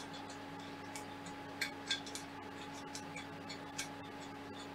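Light, irregular clicks and taps of hands handling and setting down aluminium extrusions and frame parts of a 3D printer kit, over a steady faint hum.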